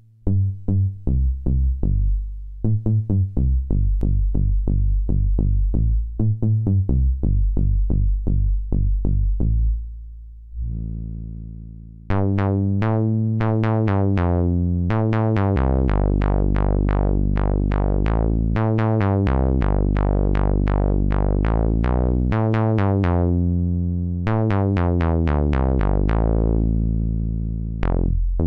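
Home-built prototype analog monosynth playing a bass line. For the first ten seconds the notes are short and plucky; after a held note that fades away, from about twelve seconds in, a two-oscillator sawtooth octave bass patch plays fuller, brighter notes with a filter sweep on each.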